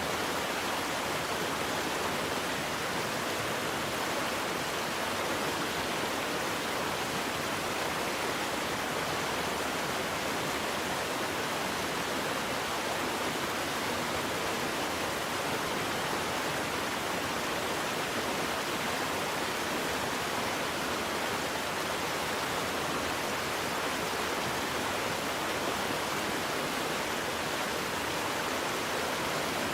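Waterfall: water falling and splashing in a steady, even rush without change.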